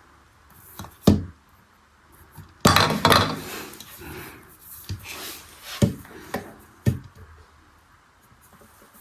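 Small plastic toy parts being handled: a few sharp clacks and knocks, with a stretch of clattering and rubbing about three seconds in.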